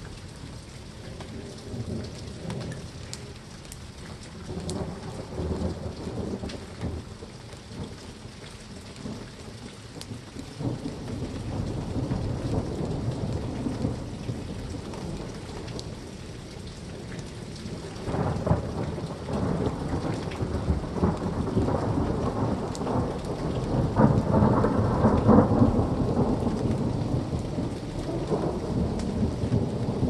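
Thunderstorm: steady rain with long, rolling thunder that swells about a third of the way in and grows loudest late on.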